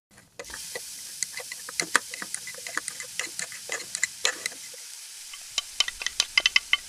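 Small hard plastic toy pieces clicking and tapping as they are handled, in irregular light knocks that come quicker and closer together near the end.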